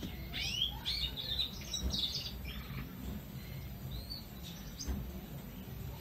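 Small birds chirping: a quick run of short chirps rising and falling in pitch over the first two seconds or so, then a single chirp a little past the middle, over a steady low rumble.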